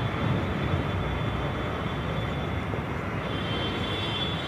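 Steady rumbling background noise, with a faint thin high tone for about a second after the middle.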